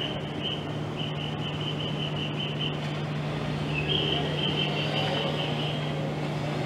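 Outdoor street ambience: a steady low hum, like distant traffic or an engine, under a rapid high-pitched chirping that repeats about five times a second, breaks off for about a second midway, then resumes with a short upward slide.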